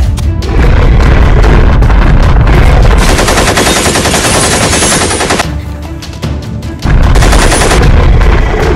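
Rapid automatic rifle fire: one long burst lasting several seconds, then a second burst starting near the end.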